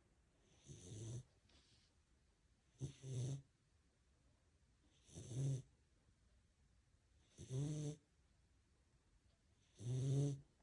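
Sleeping puppy snoring: five short snores, one about every two seconds.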